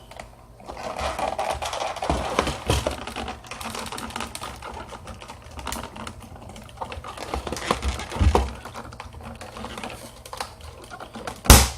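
A knife cutting open a cardboard toy box, with irregular scraping, clicking and crinkling as the tape and packaging are slit and handled. A short, loud noise comes near the end.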